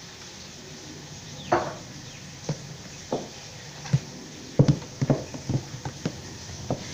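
High-heeled shoes clicking on a tiled floor as someone walks off, a run of sharp uneven taps from about two and a half seconds in, after a single knock on wooden furniture about a second and a half in.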